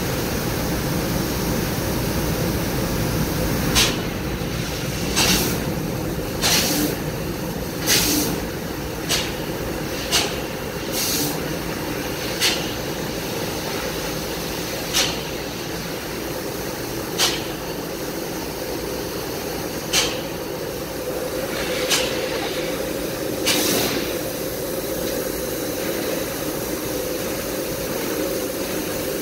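Mitsubishi CNC laser cutter cutting 1.6 mm sheet metal: a steady machine hum and noise, broken by short hissing bursts from the cutting head at irregular intervals, about fifteen of them, most in the first two-thirds.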